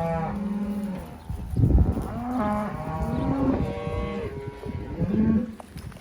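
Calves bawling in several drawn-out calls, separated from their mothers and scared. A low rumbling noise comes between the calls about two seconds in.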